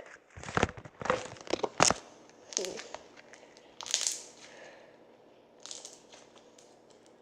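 Slime being squeezed and popped by hand, giving a run of sharp pops and crackles. They come thick in the first two seconds, then only now and then, growing sparser.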